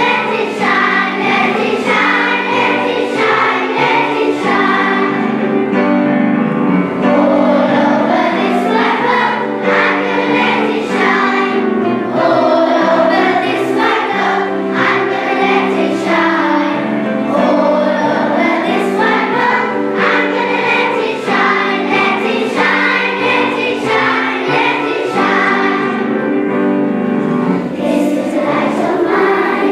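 A group of children singing together as a choir, a song held steadily without pause.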